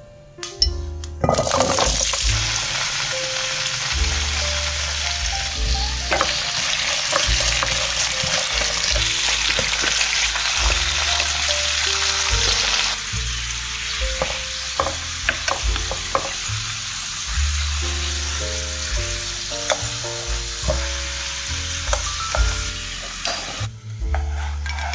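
Raw potato slices frying in hot oil in a nonstick pan. A loud, steady sizzle starts suddenly about a second in as the slices hit the oil. It is broken by the scrape and tap of a wooden spatula turning them, and cuts off shortly before the end.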